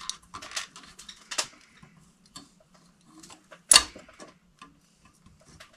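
Porcelain lamp holder being pushed up and fastened onto a metal electrical box: scattered small clicks and scrapes, with one sharp clack just under four seconds in.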